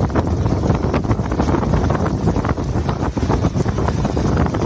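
Wind buffeting the microphone over constant splashing as a sled dog team and the wooden sled run through shallow meltwater lying on the ice.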